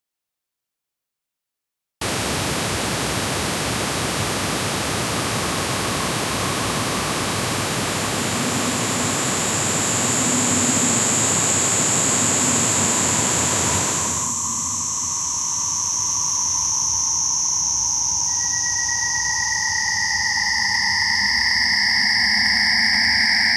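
Electronic noise music: about two seconds of dead silence, then a sudden dense wall of hiss. About 14 s in, the lower part of the noise drops away, leaving a thinner hiss with a high whistling tone that slides slowly downward, joined near the end by a second, lower tone.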